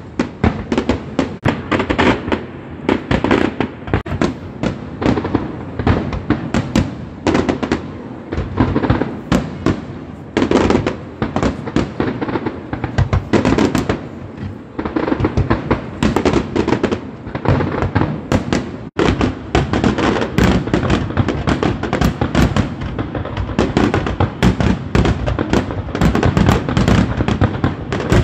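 Aerial fireworks going off in a dense, continuous barrage of bangs.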